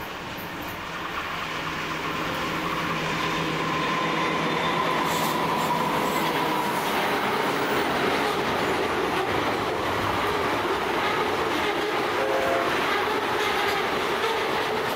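A pair of CM class diesel locomotives pass at the head of a container freight train, followed by the container wagons rolling by with steady wheel clatter. The sound grows louder over the first few seconds as the train arrives, and a thin wheel squeal on the curve comes and goes a few seconds in.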